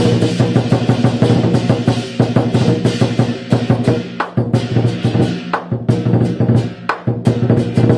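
Lion dance percussion music: a drum beaten in a fast, dense rhythm with clashing percussion ringing over it, and brief breaks in the beat about five and a half and seven seconds in.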